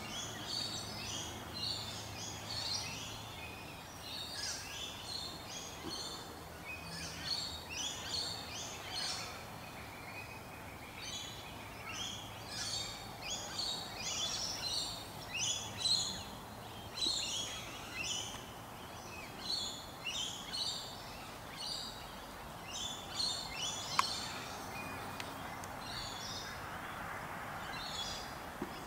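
Small birds chirping: a continuous run of short, high notes in quick clusters, with a single sharp click about 24 seconds in.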